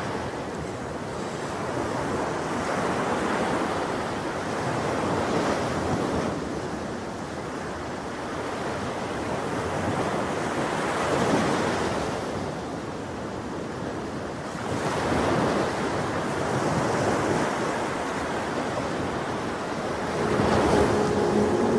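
Ocean surf washing ashore in slow surges, with wind. A steady low hum comes in near the end.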